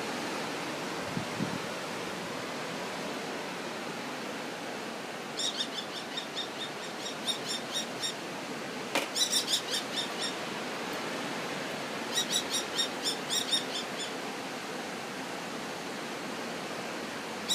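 A falcon calling in rapid runs of sharp, high, repeated calls, about five a second, in three bursts of a couple of seconds each starting about five seconds in, over a steady hiss.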